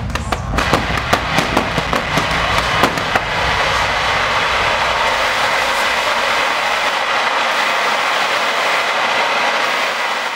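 A rapid run of sharp cracks and pops for about three seconds, then a steady, loud hiss of CO2 jet cannons blasting, fading out near the end.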